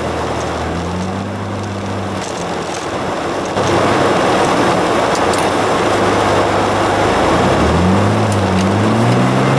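1992 Ford F-150 pickup driving on snow-packed streets, heard from inside the cab: the engine runs with its note rising and falling as the truck speeds up and slows, under steady tyre and road noise. The road noise gets louder about three and a half seconds in, and the engine note climbs again near the end.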